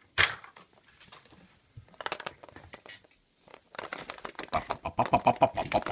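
Hollow plastic surprise egg clacking in the hand. A single sharp click comes just after the start and a few more about two seconds in, then a fast run of plastic clicks and rattles from about four seconds on.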